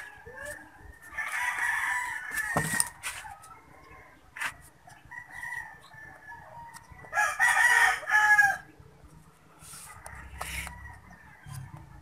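A rooster crowing twice, once about a second in and again about seven seconds in, each crow lasting roughly one and a half to two seconds.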